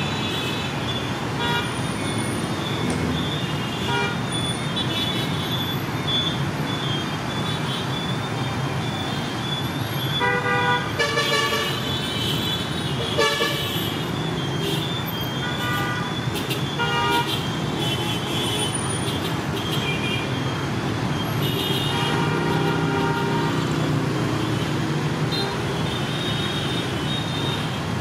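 City street traffic of cars and motorbikes running steadily, with repeated short horn toots, most of them clustered about ten to thirteen seconds in, again around sixteen seconds and near twenty-two seconds.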